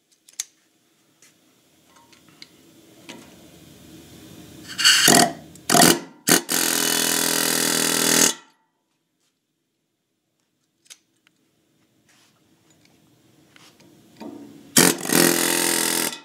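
Pneumatic air hammer driving K-Line bronze guide liners into the valve guides of a cast-iron big block Chevy cylinder head. A couple of short bursts, then a steady buzzing run of about two seconds; a second run comes near the end.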